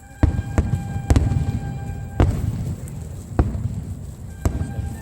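Fireworks shells bursting overhead: about six sharp booms spread irregularly over five seconds, each followed by a low rumbling tail, with music playing steadily behind.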